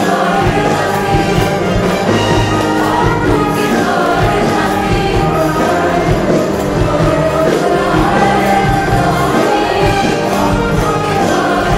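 A concert crowd singing an Arabic love song together in chorus over a live band.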